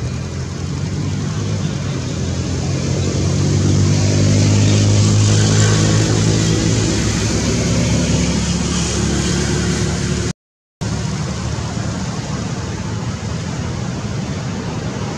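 A motor vehicle's engine passing close by: its low hum builds, is strongest around the middle and fades away, over a steady noisy background. The sound drops out completely for a split second about ten seconds in.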